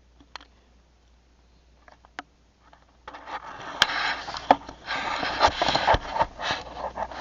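A few faint clicks, then about a second in from the middle a burst of close rustling, scraping and clicking lasting around four seconds, typical of a camcorder being handled right by its microphone.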